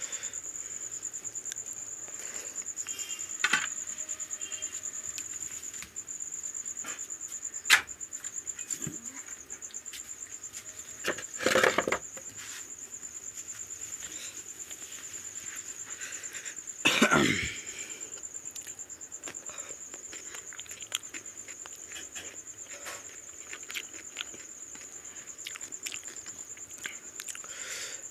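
A person coughs twice, harshly, the second cough about five seconds after the first. Behind it a steady high-pitched trill runs on, with scattered small clicks and taps from eating by hand off a plate.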